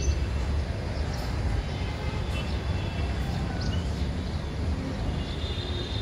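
Outdoor ambience: a steady low rumble with a few faint bird chirps above it.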